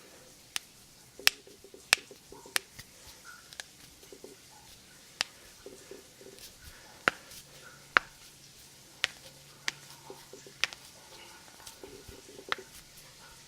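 Knuckles cracking: about a dozen sharp, single pops of finger joints at uneven intervals, with soft handling noise between them.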